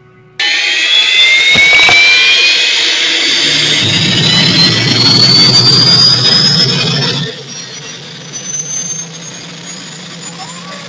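Aircraft turbine engine running with a high whine that rises steadily in pitch as it spools up. It starts suddenly and drops off sharply about seven seconds in, leaving a quieter steady engine sound.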